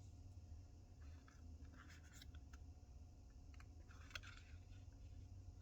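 Faint handling noises: a few short rustles and light clicks as small packaged items are picked up and handled, over a steady low hum.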